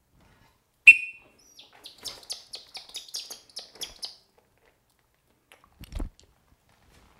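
One short, loud falconer's whistle blast about a second in, calling the Harris's hawk to the fist. It is followed by a run of about ten quick, high chirps from the hawk as it flies in to the glove, and a low thump near the end.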